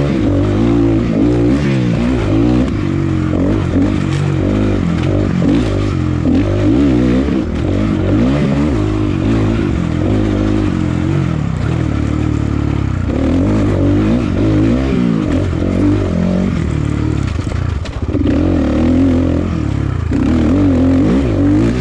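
2022 GPX FSE300R's NC300 DOHC single-cylinder engine under riding load, its pitch rising and falling again and again as the throttle is opened and closed. Each time the throttle breaks open there is a slight miss before it barks, a momentary lean-out that the rider puts down to an undialed fuel-injection tune.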